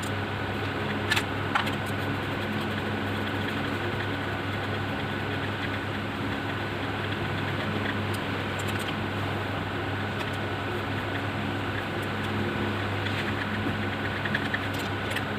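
Steady mechanical hum with a thin high steady tone over it, and a few light clicks scattered through.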